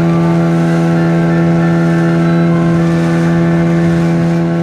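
A small fishing boat's engine running at a constant speed while the boat is under way, holding one steady pitch.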